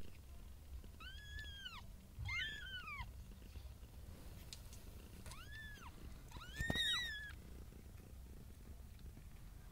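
Domestic cat meowing four times, short high calls that rise and fall in pitch, with a low steady purring underneath.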